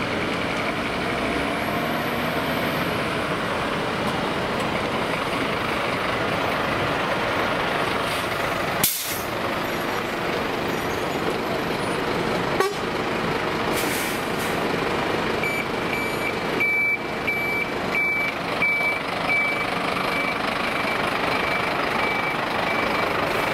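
Fire engines' diesel engines running, with a vehicle reversing alarm giving a steady series of short high beeps through the second half.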